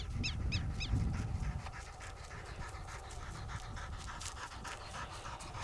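A dog panting in quick, regular, faint breaths after a run. A low rumble sits under it for the first second and a half, then fades.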